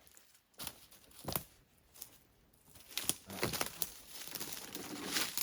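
Branches rustling and cracking as they are handled and woven into a stick shelter wall. Two sharp snaps come close together in the first second and a half, followed by a longer stretch of rustling and crackling.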